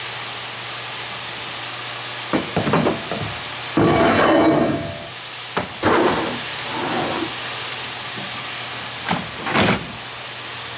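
Several knocks and rattling handling noises over a steady hiss, the longest and loudest about four seconds in.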